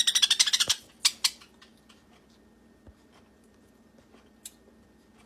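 Baby parakeet giving a fast rasping chatter of high, clicky pulses for under a second, then two short chirps, then a few faint ticks. The owner finds the call unlike that of her other parakeets.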